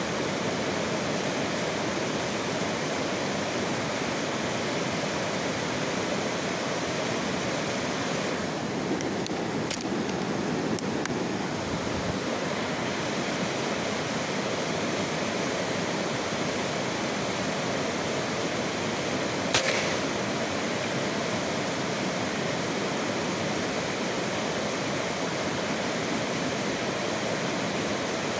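A steady rushing hiss, with two short, sharp clicks about ten seconds apart.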